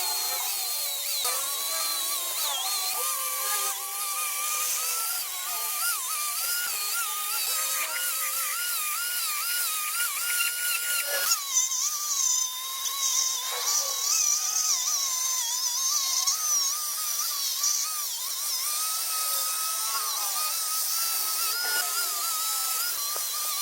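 High-pitched whine of a small power tool running, its pitch wavering continually as it works. From about 11 s a hiss is added on top of the whine.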